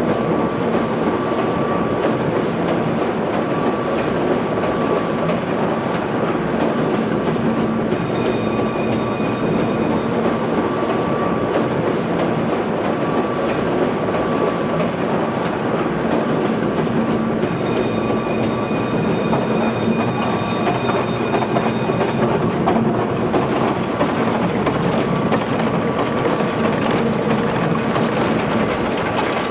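Rice and Sargent 1,500-horsepower cross-compound Corliss steam engine running steadily: a continuous dense mechanical clatter and hiss with a faint steady whine, heard on a cassette recording.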